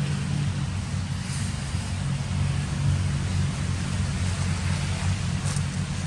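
Steady low rumble with an even hiss above it, and a couple of faint brief clicks near the end.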